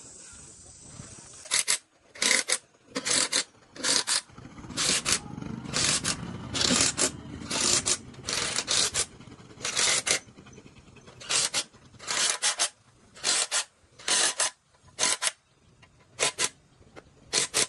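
Repeated short scraping strokes of a hand tool worked back and forth over a surface, starting about a second and a half in and coming roughly once a second, often in quick pairs.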